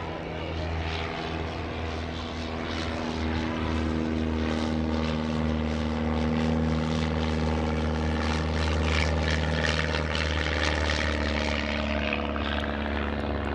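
Steen Skybolt biplane's piston engine and propeller droning steadily in a low pass, getting louder through the middle of the pass.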